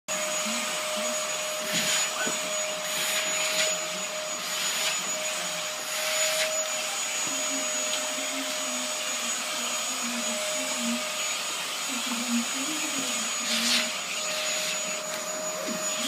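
Vacuum cleaner running steadily: a constant airy hiss with a steady motor whine, surging briefly a few times.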